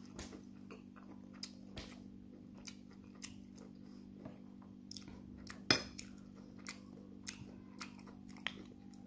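Eating sounds: a metal spoon clinking against a plate with soft chewing and mouth clicks, scattered and irregular, with one louder clink a little past halfway.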